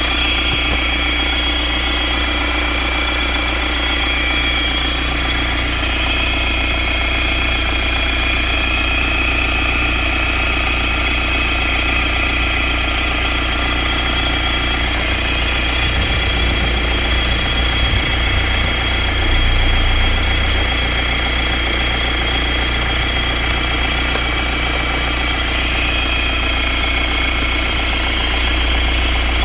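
BMW 520d's N47 four-cylinder diesel engine idling steadily, with a steady high-pitched whine over the engine note. The owner suspects the water pump or the crankshaft pulley.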